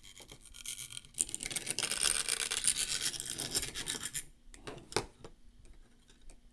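Small vibration motor of a scleral lens cleaner, an unbalanced rotating weight, buzzing as it shakes the silicone cleaning platform. About a second in the buzz grows louder and harsher. It stops suddenly about four seconds in, and a single click follows about a second later.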